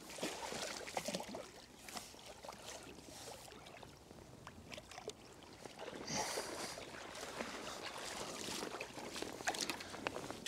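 Water sloshing and splashing as a landing net is drawn through the shallows and a hooked bream is netted, with a louder splash about six seconds in.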